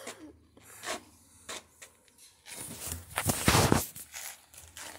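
Handling noise from a phone being picked up and moved: a few soft knocks and rubs, then a loud rushing scrape of the phone against clothing about three seconds in, lasting about a second and a half.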